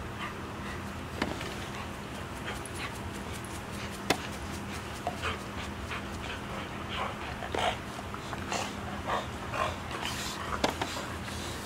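A dog making a string of short, soft whimpers during gentle mouthing play, with a few sharp clicks, over a steady low hum.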